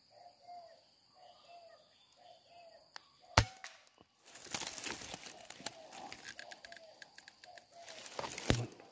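A single shot from a suppressed PCP air rifle: one sharp crack about three seconds in. About a second later come several seconds of rustling with scattered clicks. A soft short call repeats all through.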